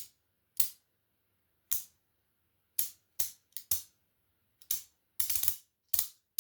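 3D-printed modular rotary switch being turned step by step through its positions, each step giving a sharp click. About a dozen clicks come at uneven spacing, with a quick run of several close together near the end.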